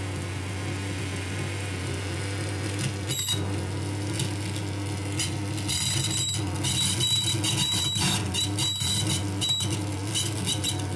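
Electronic noise music from a table rig of effects pedals and a small mixer, played through PA speakers. A steady low hum runs underneath, and choppy, stuttering bursts of harsh high-pitched noise and tones come in, growing dense from about six seconds in.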